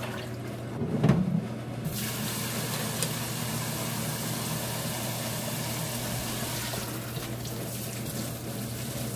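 A splash of water as hands work shredded cassava in a bowl, about a second in; then from about two seconds in a kitchen tap runs steadily into a stainless mesh strainer in a steel sink as the cassava is rinsed.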